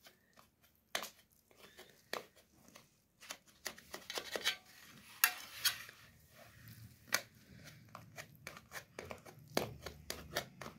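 Knife cutting a baked pizza on a metal pizza pan: scattered sharp clicks as the blade strikes the pan, with short scrapes and crunches as it goes through the crust.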